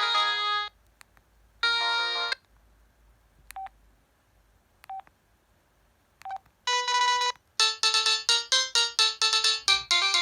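Samsung SCH-N356 cell phone playing its preloaded polyphonic ringtones. One melody stops just under a second in and a short chord sounds. Three brief keypad beeps follow, about a second and a half apart, then a new fast melody of short notes starts about three-quarters of the way through.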